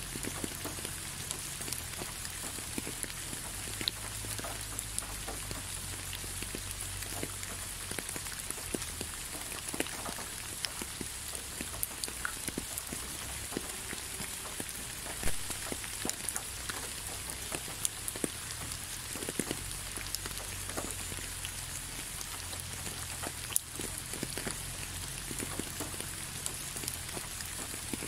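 Steady rain falling on a wet, leaf-covered road: an even hiss with many separate drops tapping close by, a few of them louder.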